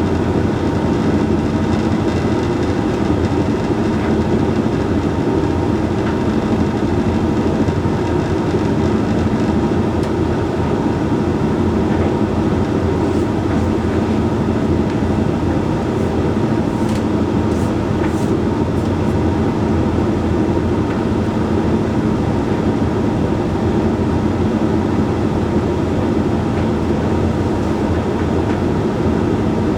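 Hoover Link X Care HLX C10DRGR condenser tumble dryer running its Whites cycle: a steady, unbroken hum from the drum and fan motor.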